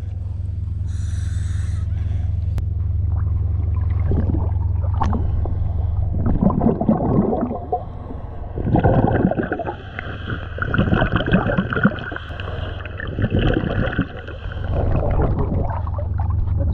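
Scuba regulator breathing underwater: from about six seconds in, a run of gurgling exhaust-bubble bursts, one every second or two, over a steady low hum.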